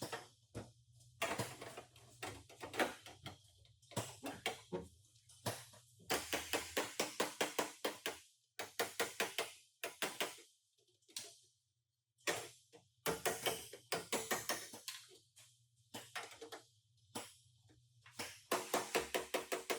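Hammer strikes on sheet-metal body panels in quick, evenly paced runs of about seven blows a second, broken by short pauses, with a ringing tone after the blows.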